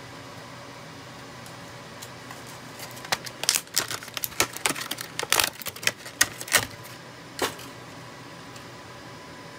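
A quick run of small, sharp plastic clicks and taps from about three seconds in, ending with one last click near seven and a half seconds: hands handling a server memory module and the DIMM slot's latches.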